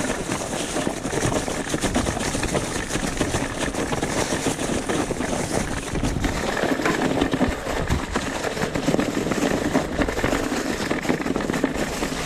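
Electric mountain bike ridden over a rough trail: tyres running over rock and gravel and the bike rattling over the bumps, a constant dense clatter of small knocks.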